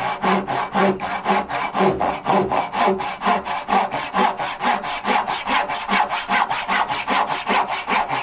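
Brass-backed dovetail saw cutting down the pin cheeks of a hand-cut dovetail joint, working toward the marking gauge line. The strokes come in a quick, even rhythm.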